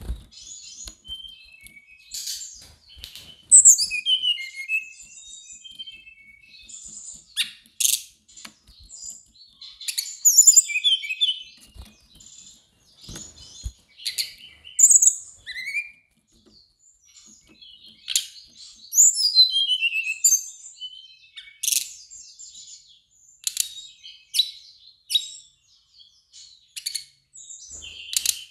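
Brown-chested jungle flycatcher singing in repeated bursts of quick, high, varied chirping phrases with short pauses between them, with sharp ticks or taps scattered among the phrases.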